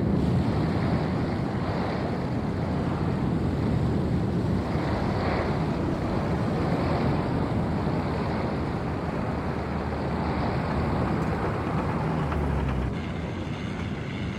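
Steady, deep rushing of a blazing oil well fire being sprayed with water jets. It eases a little near the end.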